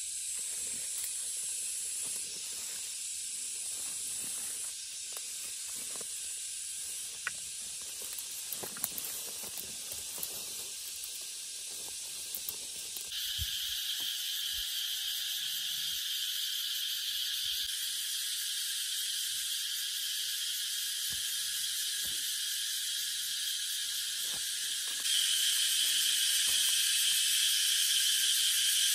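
Steady high-pitched hiss with scattered light clicks and knocks. The hiss shifts abruptly in loudness and pitch a few times, stepping up about halfway through and again near the end.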